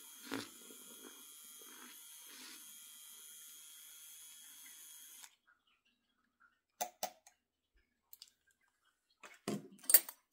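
Zulay Kitchen handheld milk frother running in a mug of milk, a steady whine with some sloshing, which cuts off suddenly about halfway. A few sharp clicks and knocks follow, the loudest near the end, as the frother is put down on the counter.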